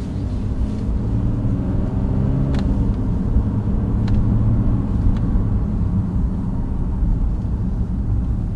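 Nissan 370Z Nismo's 3.7-litre V6 engine and exhaust running at an easy, steady rumble in gentle city driving. Three light clicks come a few seconds in.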